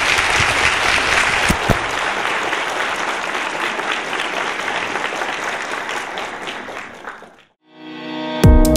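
An auditorium audience applauding steadily at the end of a lecture, the clapping fading out about seven seconds in. After a brief silence, music swells up near the end.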